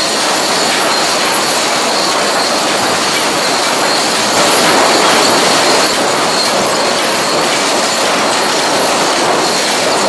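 Sawmill lumber sorting line running: chain transfers and rotary lug wheels carry southern yellow pine boards in a dense, steady mechanical clatter, with a faint high whine above it. It grows a little louder for about a second and a half midway.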